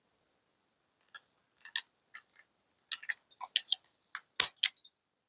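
Scattered light clicks and ticks, irregular and sparse at first, coming more thickly from about three seconds in.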